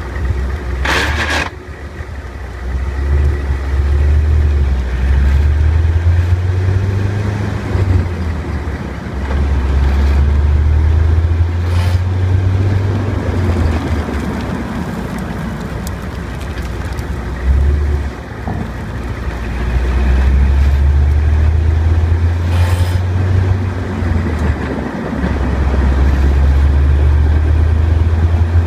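1998 Corvette's LS1 V8 running, its low rumble swelling and easing in long stretches as engine speed changes. The owner is chasing a grinding noise that appears around 1200 rpm. A few short sharp clicks stand out, the first about a second in.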